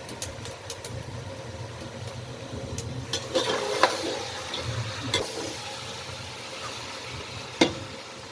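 Food sizzling in a cooking pot while a ladle stirs it, knocking and scraping against the pot several times, with the loudest knock near the end. A steady low rumble runs underneath.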